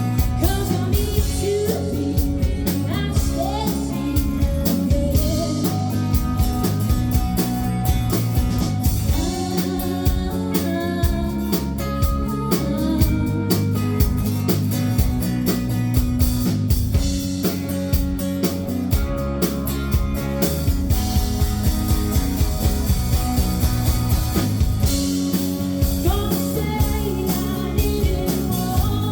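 Live rock band playing loud through a venue PA: a steady drum beat, bass and electric guitar, with a singer's voice over them.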